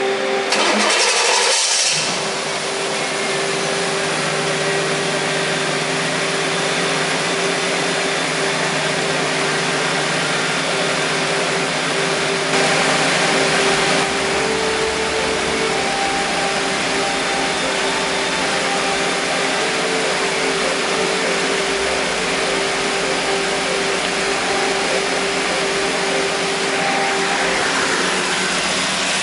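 1991 Chevrolet Camaro engine running steadily at idle, a whirring drone with a steady whine over it and a louder rush in the first couple of seconds. It is being run with a newly installed performance radiator to check that the overheating is cured.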